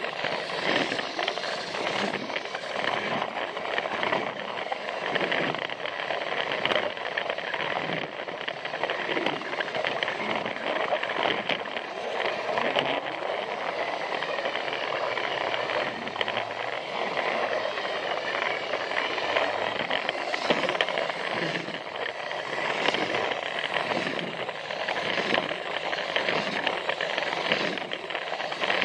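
Battery-powered Plarail toy train running on plastic track: a steady motor-and-gear whir with frequent clicks as the wheels cross the track joints.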